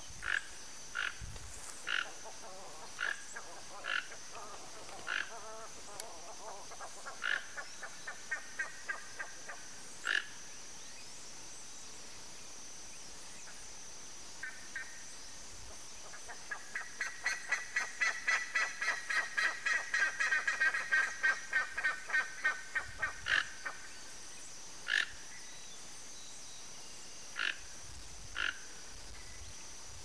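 Toco toucan calling: short calls spaced about a second apart. In the middle comes a long, fast run of calls that grows louder, then a few single calls again. A steady high buzz runs behind.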